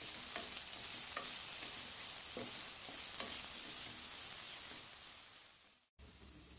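Chopped onion and green chillies sizzling in oil in a non-stick pan, with a flat spatula stirring and scraping the pan a few times. Near the end the sizzle fades and cuts off abruptly, then comes back fainter.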